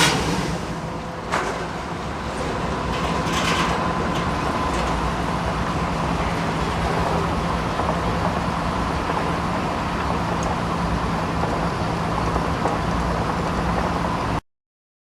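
Sawmill machinery running steadily, a constant mechanical hum and rumble, with one sharp knock about a second in. The sound cuts off abruptly near the end.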